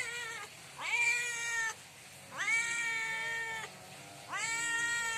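Tabby-and-white cat meowing loudly and over and over, asking for food. There are three long meows, each rising at the start and then holding steady, after the end of another.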